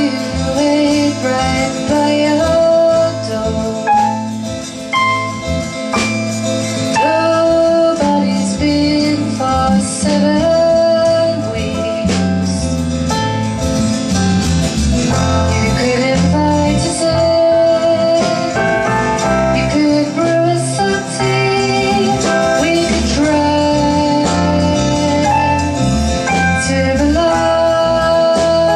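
A woman singing into a microphone while strumming an acoustic guitar, a continuous song with long held notes.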